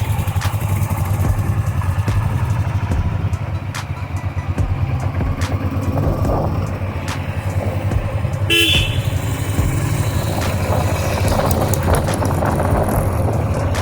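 Royal Enfield Meteor 350's single-cylinder engine running with a steady, pulsing low thump. A vehicle horn honks briefly about two-thirds of the way through.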